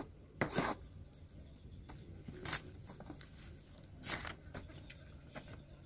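A handful of short, faint rustles and light knocks, scattered a second or so apart. They come from a kitchen knife cutting a steamed mushroom-chicken nugget dough slab and from the pieces being handled on their plastic and paper liner.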